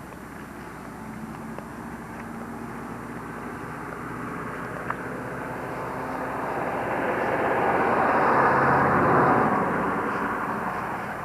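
A vehicle passing by: a steady noise with a low engine hum that slowly grows louder, peaks about eight to nine seconds in, then fades.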